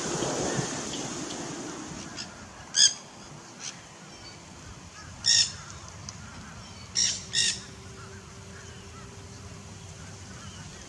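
A bird calling: four short, loud calls, the last two close together, over a light outdoor rustle that dies away in the first two seconds.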